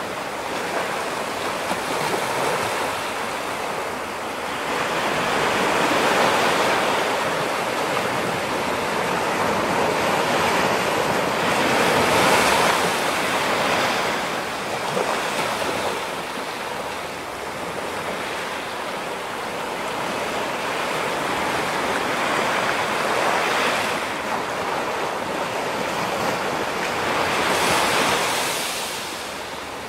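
Ocean surf: waves breaking and washing in as a continuous rushing hiss that swells and eases every few seconds.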